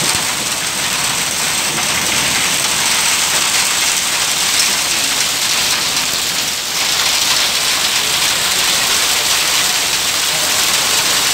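Heavy rain mixed with hail pouring down onto a flooded road and hail-covered grass: a loud, dense, steady hiss.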